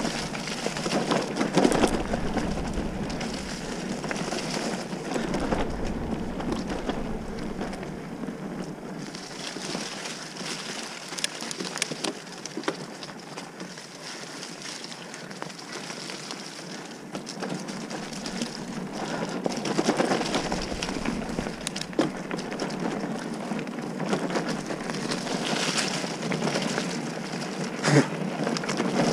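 Mountain bike rolling fast over a dirt trail strewn with leaves: a steady crunch and rustle of tyres on gravel and litter, with frequent rattles and knocks from the bike over bumps, and one sharp knock near the end.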